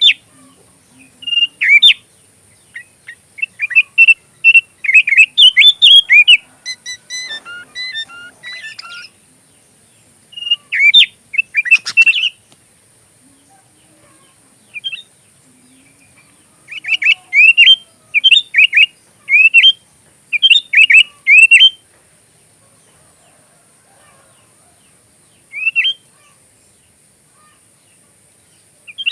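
Sooty-headed bulbul (kutilang) singing, its song filled with phrases learned from an oriental magpie-robin (kacer): runs of short, quick, sharply falling whistled notes, broken by pauses of a few seconds. A faint steady high hiss runs beneath.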